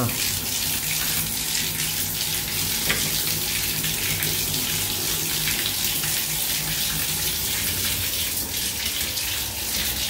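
Water running in a steady stream from a bare tub spout pipe, the spout taken off, and splashing into the bathtub.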